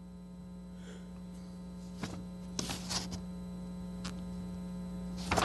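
Steady electrical mains hum on the audio line, with a few faint rustles and clicks of paper pages being handled and turned.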